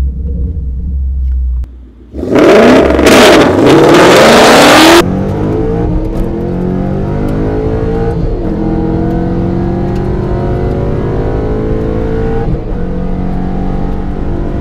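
2013 Ford Mustang GT's 5.0 V8 at wide-open throttle on a quarter-mile drag pass. It goes from a low rumble to a launch about two seconds in, with a few seconds of very loud, harsh noise. The engine note then climbs steadily in pitch and drops briefly at upshifts about 8 and 12 seconds in.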